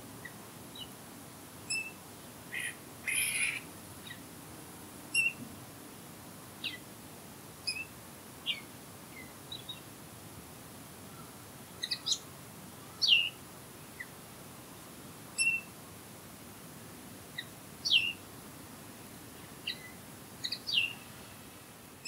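Songbirds calling in the open: scattered short, high chirps and downward-slurred whistles every second or two, with a brief harsh chattering burst about three seconds in, over a faint steady hiss of outdoor background.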